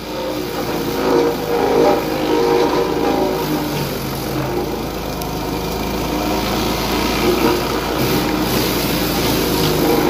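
Tow-behind wood chipper's small gas engine running steadily under load while a leafy branch is fed in and chipped.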